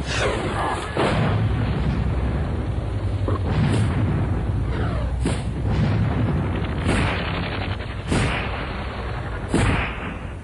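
Battle gunfire and explosions: a series of loud bangs, roughly one every one to two seconds, each trailing off in a long echo, over a steady low rumble.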